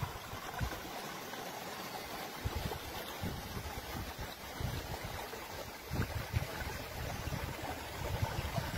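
Water running in a narrow irrigation channel, a steady hiss, with wind buffeting the microphone now and then, most strongly about six seconds in.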